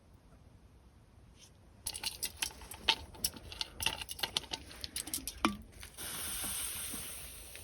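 Light metal clinks and taps of camp cookware and utensils, a quick irregular run lasting about four seconds, followed by a steady high hiss that sets in about six seconds in.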